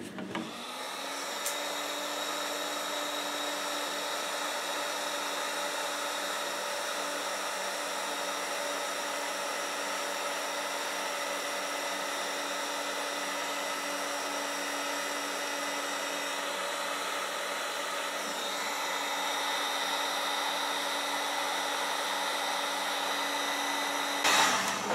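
Electric heat gun running steadily, switched on about half a second in and off just before the end, shrinking heat-shrink tubing to hold a wire line guide onto a fishing rod.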